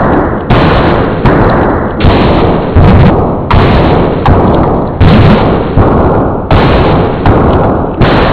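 A heavily distorted, clipped sneeze sample looped in a steady rhythm, one harsh hit about every 0.7 seconds, each starting sharply and fading before the next.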